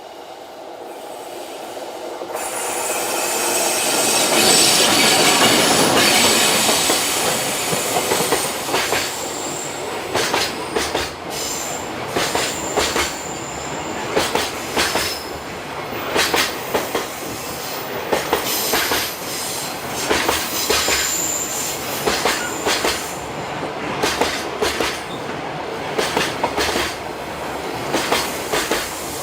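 Freight train passing close by. It grows louder over the first few seconds as it arrives. Then a long string of wagons rolls past with repeated rail-joint clacks and a high-pitched wheel flange squeal.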